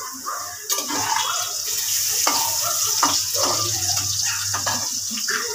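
Water running from a kitchen tap into a steel sink. The steady hiss comes on sharply less than a second in, with a couple of light knocks against it.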